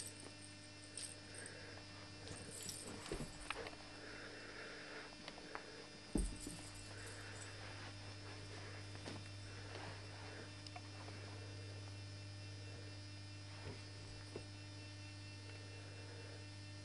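Steady electrical hum with scattered soft knocks and rustles, and one heavier thump about six seconds in.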